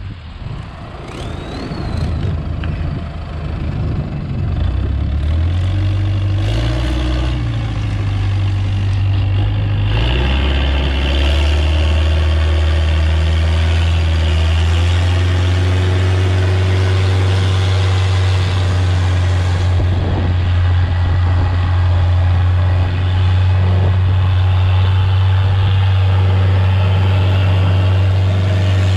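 Longtail boat engine opening up as the boat gets under way, its pitch rising and wavering over the first ten seconds, then running steadily at speed with the rush of the boat's wash.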